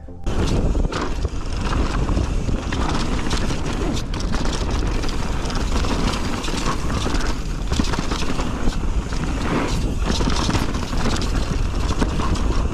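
Mountain bike ridden down a rough trail, heard from a chest-mounted action camera: steady wind rumble on the microphone with constant clattering of tyres, chain and frame over rough ground.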